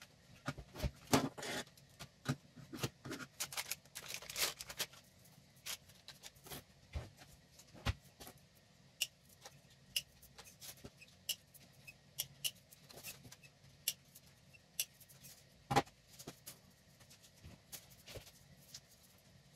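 Handling sounds of a 3D pen kit being unpacked on a wooden desk: scattered clicks and taps of small plastic parts and filament coils set down, with brief rustling of plastic wrap about a second in and again around four seconds in, and one louder knock late on.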